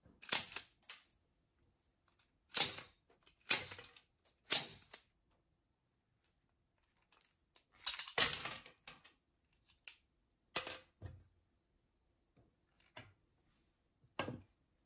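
Toy COP .357 four-barrel derringer firing four shots in the first five seconds, each a sharp snap. About eight seconds in comes a louder clack as the barrel block is tipped open, then a few lighter clicks and knocks as the shells are taken out and drop onto the wooden table.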